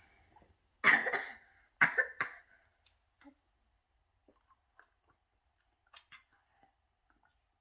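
A few short coughs in quick succession, the loudest about a second in, then faint small sounds of a child sipping from a small metal cup.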